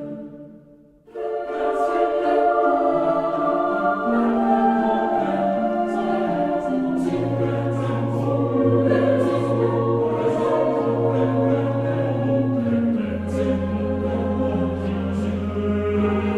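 Choral music: a choir singing slow, sustained chords over long-held low notes. The sound fades nearly out and starts again about a second in.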